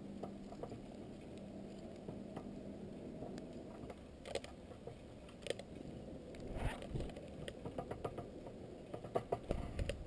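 Close taps and clicks of northern cardinals pecking and shuffling in sunflower seed and cracked corn on a feeder tray, with a louder rustle about six and a half seconds in and a quick cluster of sharper taps near the end.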